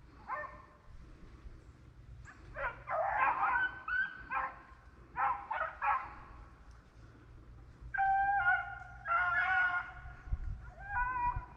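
Rabbit-hunting hounds baying: a run of short yelps, then longer drawn-out bawls, the voice of dogs trailing a rabbit.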